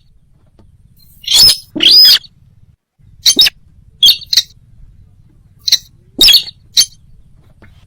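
Sintar (slaty-breasted rail) calls played as a hunting lure: loud, sharp, harsh notes, singly or in quick pairs, repeated about once a second with short gaps.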